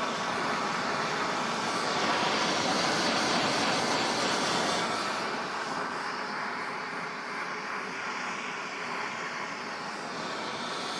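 Gas blowtorch burning with a steady rushing hiss, heating a rusted, seized exhaust pipe joint to free it.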